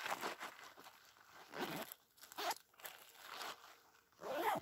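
Plastic zip-lock baggies crinkling and the nylon fabric of a 5.11 Rush 12 backpack rustling as the first-aid bags are stuffed into its small top pocket and the pocket is zipped shut, in irregular bursts.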